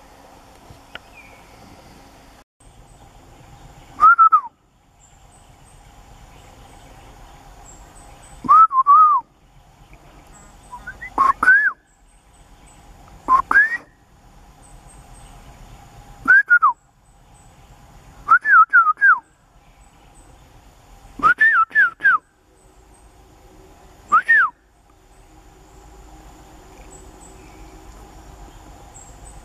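Gaur calling with a series of loud, short, arching whistles, some single and some in quick runs of two or three, repeated every two to three seconds and stopping a few seconds before the end.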